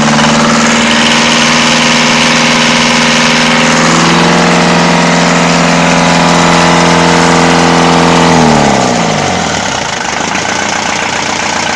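Westerbeke 4-107 four-cylinder 50 hp marine diesel running steadily at raised revs with its raw-water cooling flowing, then brought back about eight and a half seconds in, its pitch falling quickly to a lower idle.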